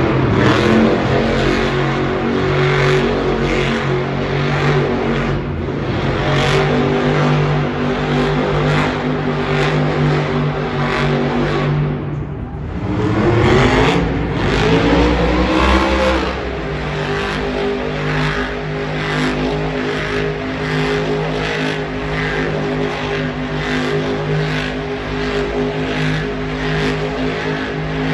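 Monster truck engines running hard at high revs while a truck spins donuts on a dirt floor. A little under halfway through, the engine sound drops away briefly, then climbs in a long rising rev before settling back to a steady hard run.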